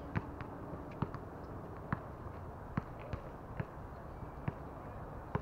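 Tennis balls being struck by racquets and bouncing on a hard court: a series of short sharp pops at irregular intervals over a steady outdoor background hiss.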